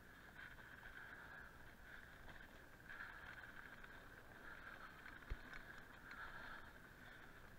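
Faint sound of a mountain bike coasting down a dirt singletrack: a steady high buzz that swells and fades, a low rumble underneath, and one sharp thump a little after five seconds.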